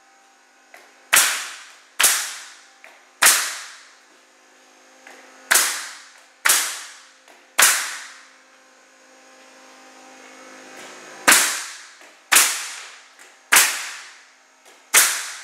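A MAX HN120 500 PSI high-pressure pneumatic concrete pinner firing pins through plywood subflooring into concrete: sharp shots roughly a second apart, about eleven in all. They come in three runs, with a pause of a few seconds before the last run of five.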